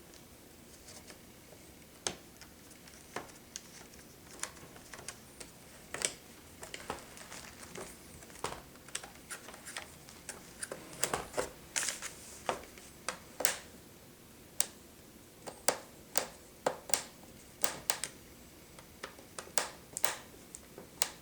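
Irregular small clicks and taps from handling a laptop's replacement screen and its mounting screws, sparse at first and coming thicker and louder from about halfway through.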